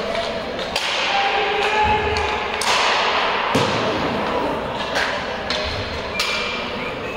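Thuds and knocks of a game in play, echoing in a large sports hall, with a few short squeaks.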